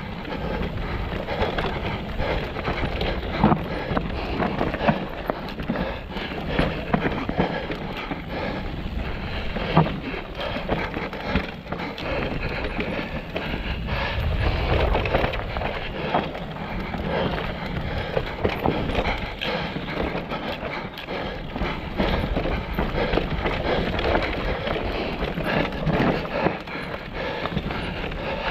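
Mountain bike riding over rough, rocky ground: tyres rolling on rock and the bike rattling, with frequent sharp knocks and clatters from hits on rocks.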